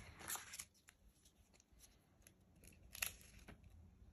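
Faint rustles and soft crackles of a paper Valentine card being handled and unfolded, a few short ones near the start and another about three seconds in, with near silence between.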